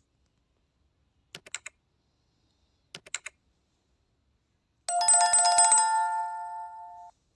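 Subscribe-button animation sound effects: two short bursts of mouse clicks about a second and a half apart, then an electronic notification bell ringing for about two seconds and fading out.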